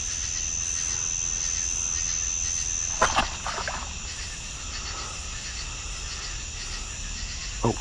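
Steady high-pitched chorus of night insects. One thin whine in it stops suddenly about three seconds in, together with a sharp knock, and a second knock comes near the end.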